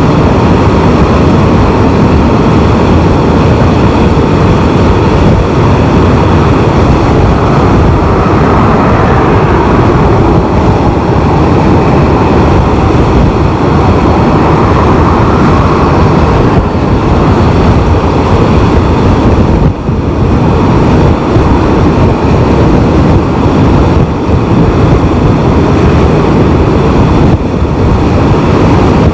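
Steady loud wind rush and road noise on a Can-Am Spyder three-wheeled motorcycle at dual-carriageway speed, with its engine running underneath, the wind buffeting the microphone.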